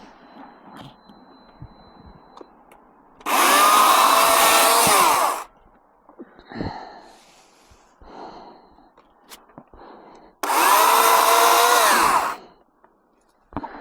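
Hawksmoor 2200 W electric chainsaw run in two bursts of about two seconds each, its motor whining up to speed, holding steady, then winding down as the trigger is released, while branches are cut up. Light handling knocks and rustling between the bursts.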